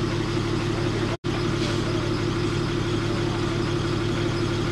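Bus engine running, a steady drone with a low hum heard from inside the passenger cabin. The sound drops out for an instant about a second in.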